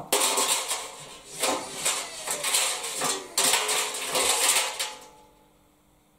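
The door seal's thin wire clamp spring clattering and scraping against the stainless steel washing machine drum as it is fought into place and slips. The clatter comes in about three loud bouts and stops about five seconds in.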